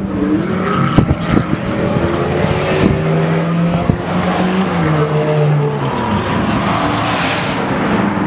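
Supercar engine running hard at a track, its pitch stepping up and down with the revs, with several sharp cracks in the first four seconds.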